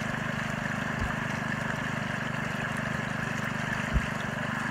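Small engine-driven water pump running steadily at low idle, feeding water that rushes and froths down a highbanker sluice box. A single short knock comes near the end.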